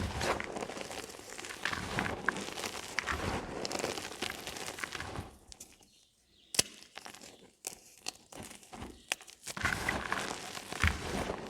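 Gym chalk being crushed and crumbled in a dense run of crunching and crackling. About halfway through it goes quiet for a couple of seconds, broken by a few sharp cracks, then the crunching picks up again.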